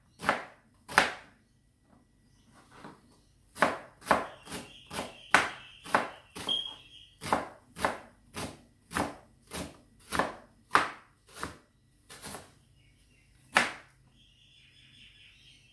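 Kitchen knife chopping a red onion on a plastic cutting board: a run of sharp knocks, one or two a second, with a short pause about two seconds in. The chopping stops a couple of seconds before the end.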